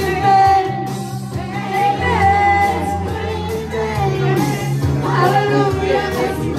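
Karaoke: a woman singing into a hand-held microphone over a pop backing track with a steady bass line, played through a PA system.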